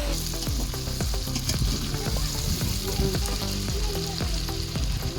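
Chicken sizzling in hot oil in a cooking pot while being stirred, with frequent quick scrapes and knocks of the stirring utensil against the pot over a steady hiss.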